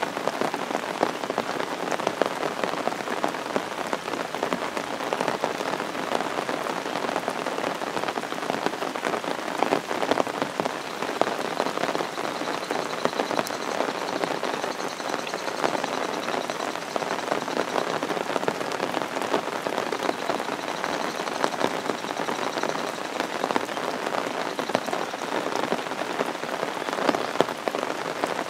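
Torrential rain falling steadily, a dense patter of drops hitting hard surfaces that masks everything else.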